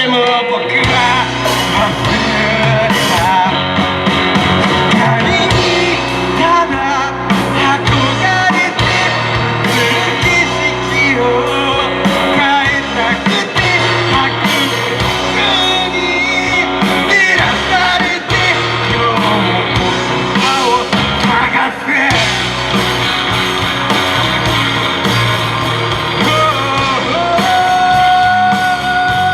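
Live rock band playing electric guitar, bass and drums, with singing over it. A long note is held near the end.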